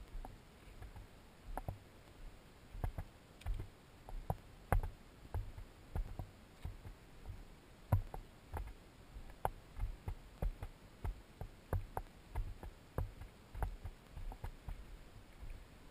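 Footsteps of a hiker walking at a steady pace on a dry dirt and rock trail, a crunching click with a low thump at each step, roughly one step every half second.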